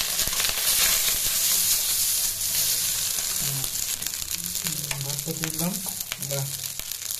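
Cooked rice frying in hot oil in a wok: a steady sizzle with the scraping and tapping of a spatula stirring it through the pan.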